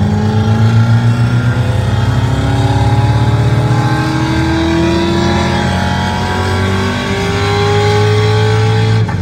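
Synthetic V8 engine sound from the RevHeadz app, played through a Honda Civic's car stereo while the car accelerates. The engine note climbs in pitch and drops back several times, like upshifts through the gears.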